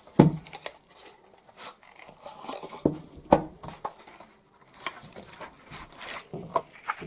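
Scattered clicks, knocks and rustling of gear being handled and set down, with two sharper knocks, one just after the start and one about three seconds in.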